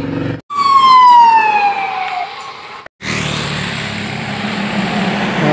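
A siren sweeping down in pitch once over about a second and a half, loud. After an abrupt cut, the steady noise of cars passing with engines running.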